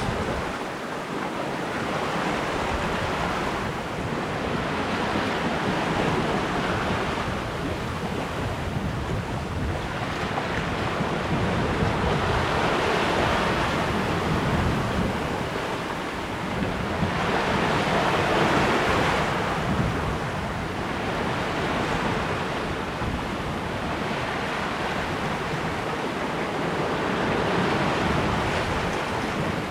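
Lake waves washing along a sailboat's hull while it is underway, the rush of water swelling and easing every few seconds, with wind buffeting the microphone.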